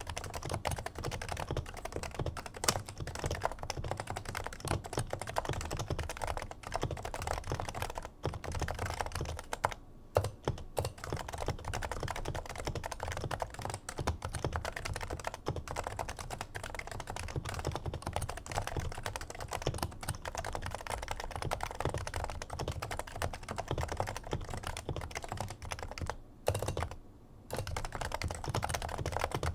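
Fast continuous typing on a Topre Realforce R2 keyboard with 55 g factory-silenced Topre electrocapacitive switches, giving a muffled, deep "thock" on each keystroke, broken by two brief pauses.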